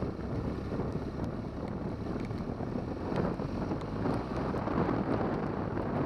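BMW R1200GS flat-twin engine running as the motorcycle is ridden off-road, with heavy wind noise on the microphone.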